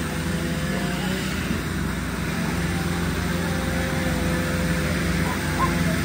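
An engine running steadily at an even pitch, a continuous drone with no revving.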